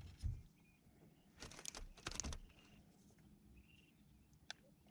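Faint scuffs and rustles in a few short bunches, with a sharp click near the end and a few brief, faint high chirps in the background.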